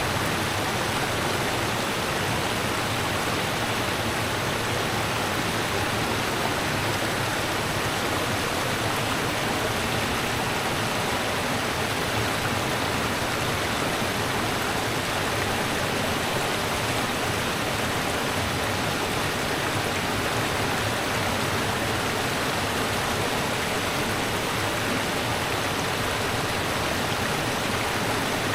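Rushing river water, a steady, unbroken rush with no pauses or changes.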